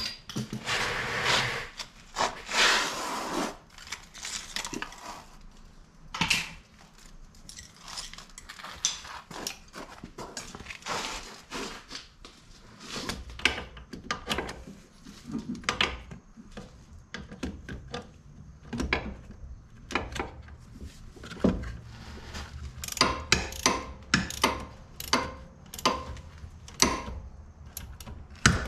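Hand tools clinking and knocking against the front wheel hub and steering knuckle during a wheel bearing replacement, in irregular clicks. There is a stretch of dense rasping in the first few seconds.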